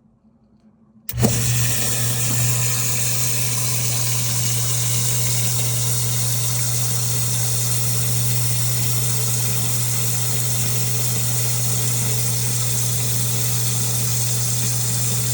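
Half-horsepower submersible primary sump pump switching on about a second in as the rising water reaches its float level, then running steadily: a low, even motor hum under a constant rush of pumped water.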